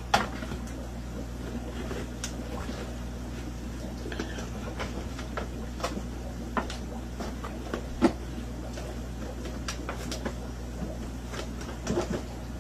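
A cardboard box being handled and its flaps opened: scattered light taps, scrapes and rustles, with a sharper knock right at the start and another about eight seconds in. A steady low hum runs underneath.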